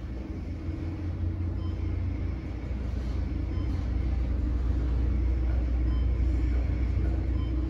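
Fast passenger elevator (a Schindler-modernized former Haughton car) ascending, heard from inside the cab: a low rumble that builds over the first few seconds as the car picks up speed, then holds steady. Faint short high ticks come about once a second.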